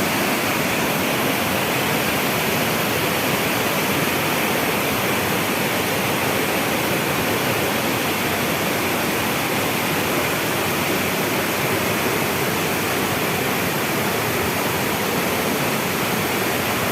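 Water pouring over a dam in full flow: a steady, unbroken rush.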